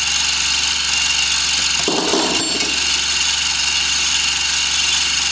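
Milling machine running steadily with a single-insert fly cutter taking a face cut across a square metal block in the vise; a brief rougher burst of cutting noise about two seconds in.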